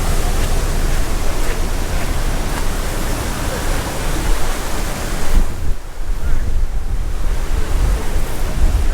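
Tropical-storm wind buffeting the microphone with a low rumble, over a steady rushing hiss of wind-driven rain and spray. The hiss eases for a moment a little past five seconds in, then returns.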